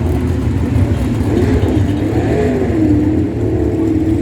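360 sprint car V8 engines racing in a pack on a dirt oval: a steady low rumble with engine notes rising and falling as the cars accelerate and lift.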